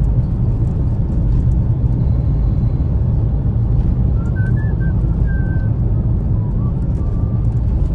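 Steady low rumble of a car's engine and tyres on the road, heard inside the moving car's cabin. A few faint, brief tones sound about halfway through.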